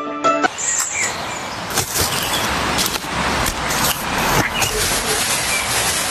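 Outdoor sound: a steady rustling noise with scattered sharp clicks and a few brief bird chirps.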